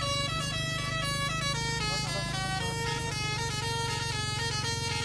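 Indonesian tour bus's multi-tone "telolet" air horn playing a quick melody of held notes that step up and down, with a steady low rumble underneath.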